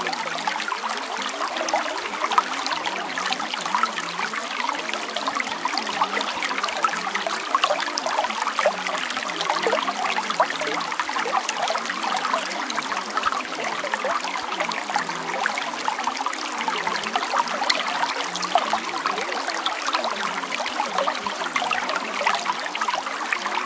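Steady running water, like a babbling stream, trickling and splashing evenly throughout.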